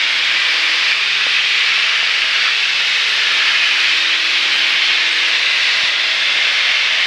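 Cabin noise of a Piper Archer single-engine light aircraft in flight: the piston engine and propeller running at a steady drone under a strong, even hiss of engine and airflow noise.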